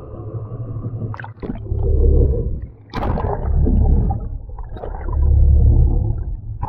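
Water noise from a camera dipped into the sea: splashes as it breaks the surface, with a sharp splash about three seconds in, then muffled underwater gurgling and low rumbling surges that swell and fade several times.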